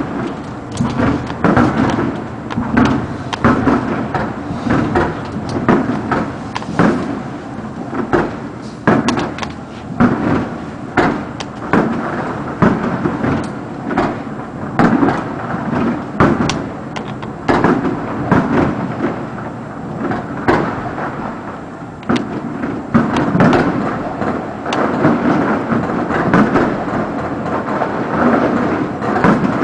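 Aerial fireworks display: shells bursting in a rapid, irregular barrage of booms and cracks, several a second, over a continuous rumble.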